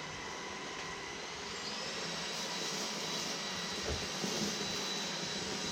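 Dibea C17 cordless stick vacuum running in max mode: a steady motor whine over the rush of suction, rising slightly in pitch and loudness about two seconds in.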